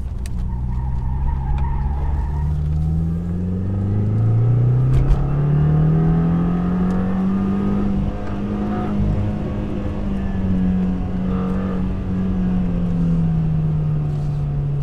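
2015 Subaru WRX's turbocharged flat-four running through its Invidia N1 cat-back exhaust under hard acceleration, heard from inside the car. The engine note drops with a gear change about three seconds in, then climbs steadily and eases off again near the end.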